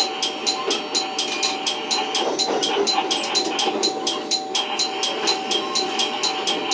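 KiHa 54 diesel railcar rolling slowly into a station platform, heard from the cab: a steady running rumble and hum with a fast, even ticking of about five or six a second.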